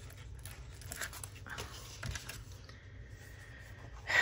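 Soft rustling and handling of paper cards and sticker sheets, with small taps. A faint, steady high whine comes in a little past halfway.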